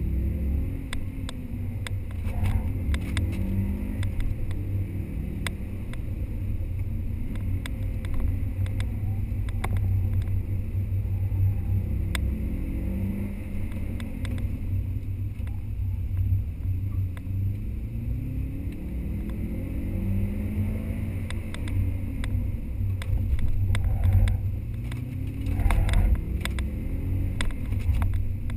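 Subaru Impreza's flat-four engine heard from inside the cabin at speed, revving up again and again and dropping back between runs, over a heavy low rumble. Scattered sharp clicks and rattles run through it.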